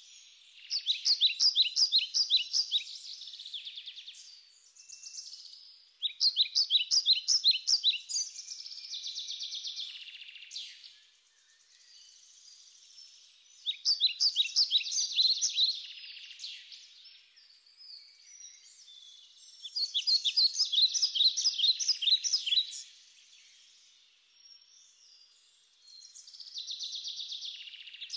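A songbird singing in repeated phrases about every six seconds: each a quick run of high chirping notes that trails off into a quieter twitter, with short silences between phrases.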